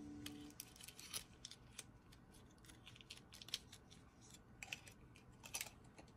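Faint, irregular small clicks and light scrapes of small objects being handled.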